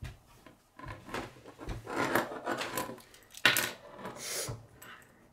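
K'nex plastic pieces being handled and fitted together: scattered clicks, rattles and rubbing, with knocks on a wooden tabletop. The loudest is one sharp click about three and a half seconds in.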